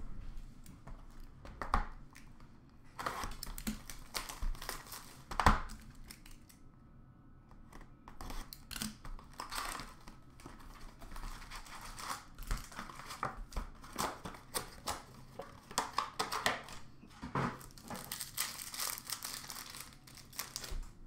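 A trading card box and its wrapped packs being opened by hand: cardboard handled, pack wrappers torn and crinkled in irregular bursts, with one sharp knock about five and a half seconds in.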